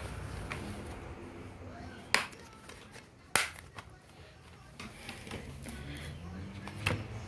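Plastic DVD cases being handled: a few sharp clicks and taps, the two loudest about two and three and a half seconds in, over a faint low hum.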